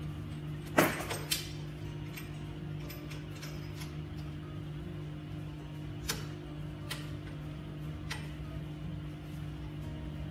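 A few sharp clicks and knocks of parts being handled and fitted at the front of a leather strap cutter: two close together about a second in, then three more spread through the later part, over a steady low hum.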